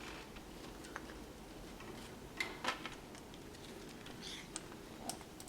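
Faint scattered clicks and taps of a parrot picking at sunflower seeds, a few sharp ticks about a second in and twice around two and a half seconds in.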